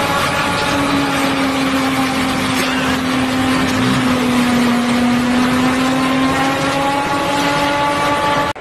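Self-propelled forage harvester running at full work while chopping corn, a steady mechanical drone with a pitched hum that comes in about a second in.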